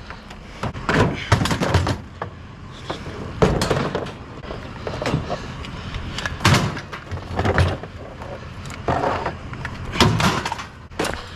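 Cast aluminum grow-light fixtures being handled and moved, giving irregular knocks and clunks, about a dozen spread over several seconds.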